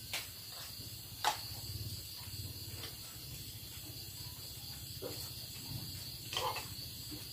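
Crickets chirring steadily in a night-time insect chorus, over a low hum. A couple of sharp clinks of spoons against bowls come in the first second or so.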